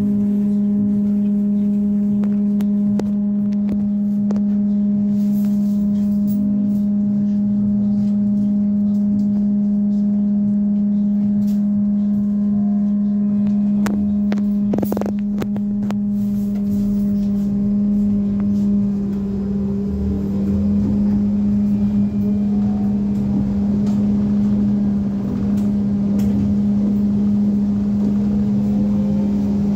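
Dnipro-T203 trolleybus heard from inside the passenger cabin: a loud, steady electrical hum with a strong low tone and overtones while it stands. A brief knock comes midway. A bit past halfway, the rising whine of the electric traction drive joins as the trolleybus pulls away.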